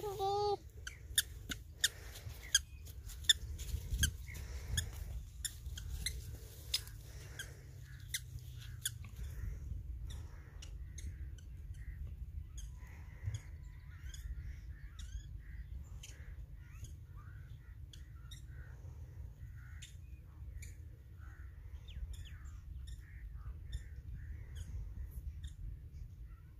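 Sharp snapping clicks of plant stems being picked by hand for the first several seconds, then birds calling here and there over a low, steady rumble.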